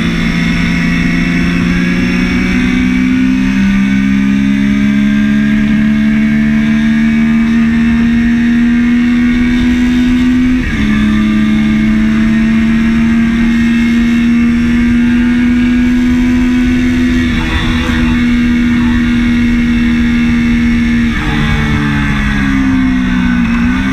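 Triumph Daytona 675's three-cylinder engine pulling under load at track speed, its pitch climbing slowly through a long run with a gear change about ten seconds in. Near the end the revs drop and waver as the throttle comes off.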